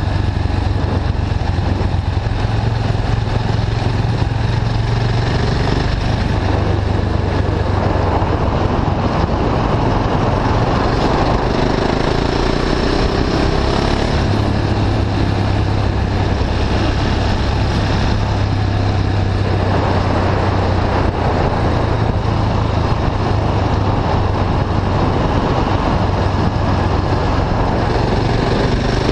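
KTM 690 Duke IV's single-cylinder engine through an Akrapovic slip-on exhaust with the catalyst bypassed, pulling steadily while riding, with wind rushing over the microphone.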